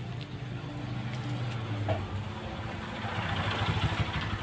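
A motor engine running with a steady hum, growing louder and noisier in the last second or so.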